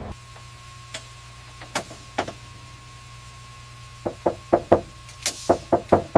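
Sharp clicks of hardware being worked in an aircraft avionics equipment rack. Three scattered clicks come first, then from about four seconds in a quick run of about eight, roughly four a second. Under them runs a steady electrical hum with a faint steady tone.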